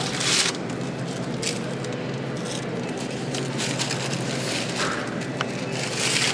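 Busy supermarket background noise: a steady hum with several short crackling rustles.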